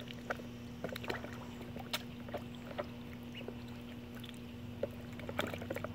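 Magpie ducklings splashing and paddling in a shallow plastic tub of water: scattered small splashes and drips over a steady low hum.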